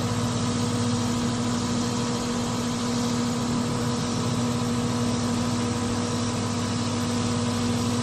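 Carrier 3-ton R410A air-conditioner condensing unit running steadily: an even electrical hum from the compressor under the constant rush of the condenser fan.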